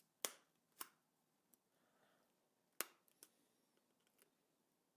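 Scissors snipping at the string that binds the feathers of a feather shuttlecock: four sharp snips in two pairs, with faint rustling in between.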